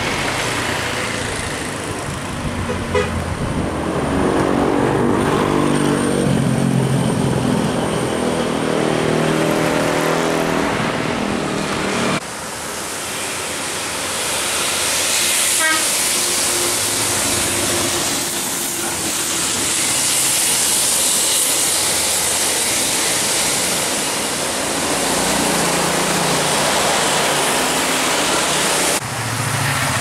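A tour bus's telolet (basuri) multi-tone musical horn playing a stepping tune of several notes for about seven seconds. After a sudden cut, a bus drives past with its engine and tyre noise up close.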